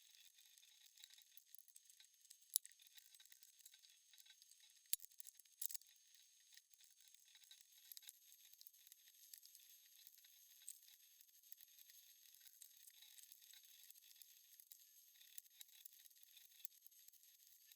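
Near silence: faint, high scratching handwork noise, with a few small sharp clicks, the loudest about two and a half seconds in and two more around five to six seconds in.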